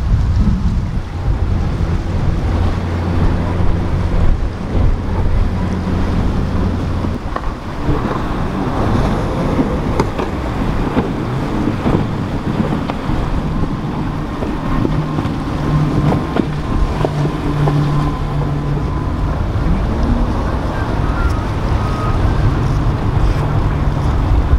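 Boat engines running with a steady low drone over the wash of waves, with wind buffeting the microphone. One engine hum drops away about a third of the way in, and another comes up later.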